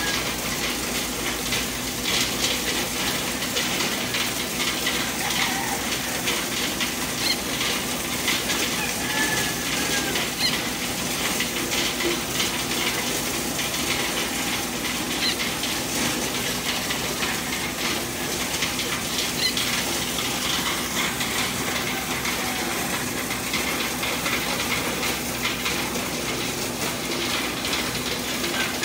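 Tractor-driven mechanical corn sheller running steadily: a constant hum under a dense, crackling rattle of ears and kernels being threshed as corn is fed into the hopper.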